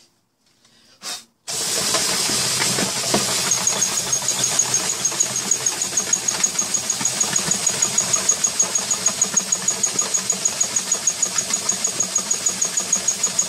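Cordless drill switched on about a second and a half in, running steadily as it turns a plastic five-gallon bucket. Inside, frozen rocks tumble through dry cannabis, knocking the resin crystals off the plant. A regular pulse of about five beats a second runs through the sound.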